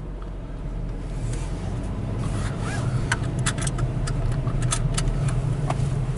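Car running along a road, heard from inside the cabin: a steady low engine and road hum. About halfway through comes a run of short, sharp clicks.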